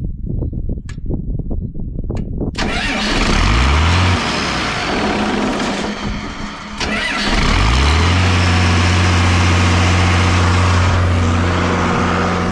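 Diesel irrigation pump engine cranked by its starter, catching about two and a half seconds in. It speeds up, drops back a second later, then picks up again and settles into a steady run.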